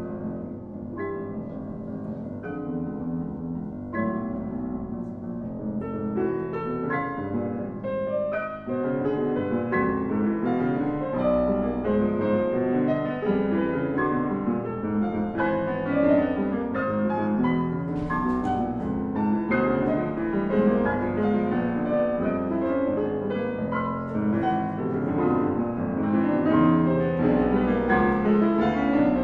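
Piano playing live, a busy passage of many quick notes that grows a little louder.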